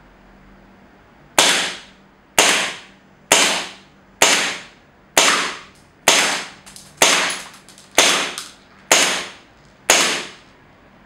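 An airsoft gun fired ten single shots, roughly one a second, each a sharp crack that fades quickly, with a faint click after a couple of them.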